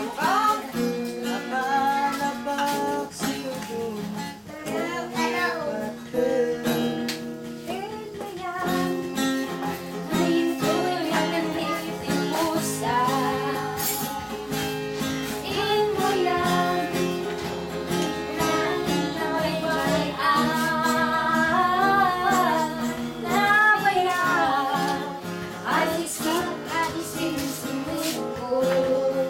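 Acoustic guitar strummed as accompaniment to a voice singing a song, with wavering sustained notes.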